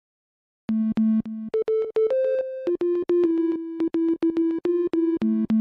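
Background music: a synthesizer melody of held notes over a clicking beat, starting about a second in, with the short phrase beginning again near the end.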